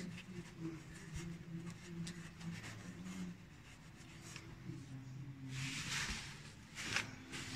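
Faint rubbing and light clicks of a gloved hand working around a car engine's oil filter mount, with a low hum underneath. About six seconds in there is a louder rustle, then a sharp click.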